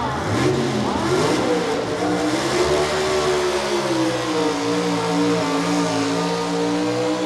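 Super Stock four-wheel-drive Chevrolet pulling truck's engine at full power hauling the sled. Its pitch swings up and down in the first couple of seconds, then holds high and climbs slowly.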